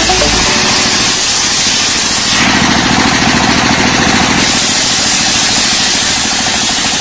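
Chainsaw engine running loud with a rapid pulsing note. Its sound shifts for about two seconds in the middle, as when the saw works in the wood.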